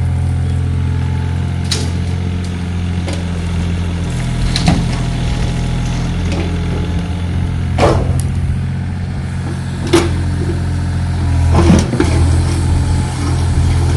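An engine running steadily at idle, with sharp knocks or clanks about five times, the loudest near the end.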